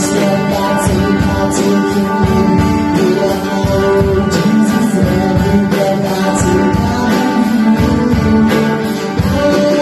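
Upbeat worship song played by a band on guitars and drum kit, with singing.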